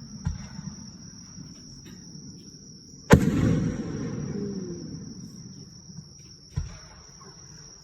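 Aerial firework shells bursting: one loud boom about three seconds in that echoes and fades over a couple of seconds, with lighter booms near the start and about two-thirds through. A steady high chirring of insects runs underneath.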